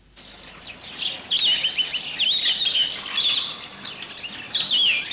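Small songbirds chirping, many short high calls in quick succession and overlapping, over a steady hiss. The sound starts suddenly and grows louder over the first second.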